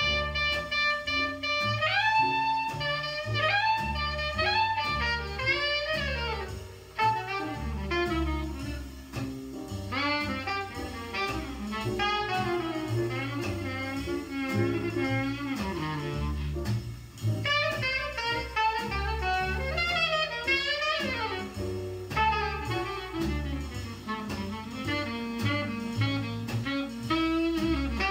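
A jazz recording played back over hi-fi loudspeakers: a solo horn spins out a flowing melodic line over bass and drums.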